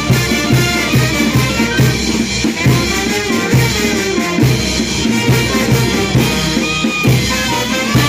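Live brass band playing Negritos dance music: trumpets carrying the tune over a steady bass drum beat of about two strokes a second.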